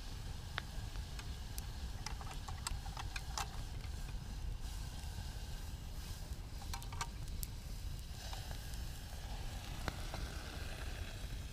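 Wood campfire burning with a hiss and scattered sharp crackles and pops, most of them about two to four seconds in and again around seven seconds in, over a low steady rumble.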